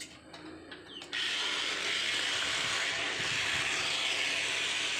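Miniature excavator's motor running with a steady, loud whirring hiss that starts suddenly about a second in.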